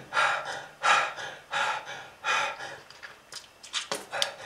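A person gasping harshly for breath: four raspy gasps about three-quarters of a second apart, then a few faint clicks near the end.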